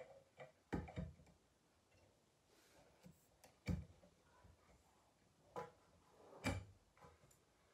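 About half a dozen scattered clicks and knocks as a floor lamp's pole and fittings are handled and screwed together, the loudest about three and a half seconds in.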